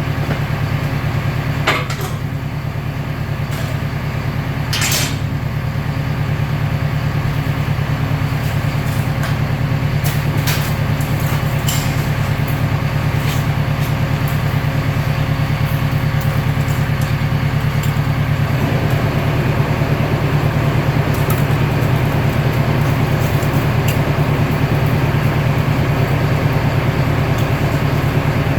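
Recycling baler running with a steady low mechanical hum, with a few sharp metallic clicks in the first five seconds. A faint higher tone stops about two-thirds of the way through.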